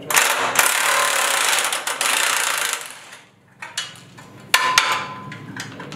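Cordless impact driver with a socket working a bolt on a steel boat-trailer frame while the mounts are being removed: a long burst of rapid hammering lasting nearly three seconds, then a second, shorter burst with a steady whine about four and a half seconds in.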